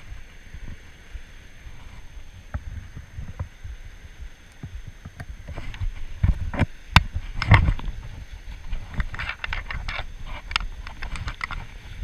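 Wind rumbling on a chest-mounted camera's microphone. From about halfway through come irregular clicks, knocks and scrapes from handling and movement against the harness.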